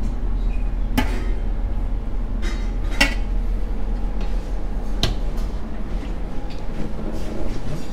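Serving utensils and a plate clinking against steel buffet trays: three sharp clinks, about a second in, at three seconds and at five seconds, with a few fainter ones between, over a steady low hum.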